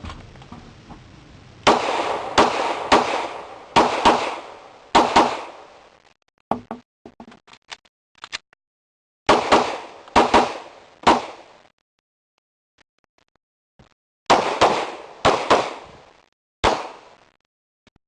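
Glock 17 9mm pistol fired in three quick strings of about five shots each. Between the strings there are pauses with a few faint clicks.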